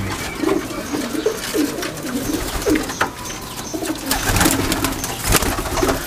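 A flock of domestic high-flying pigeons cooing in a loft, many low coos overlapping without pause. A few short sharp noises break in around the middle and toward the end.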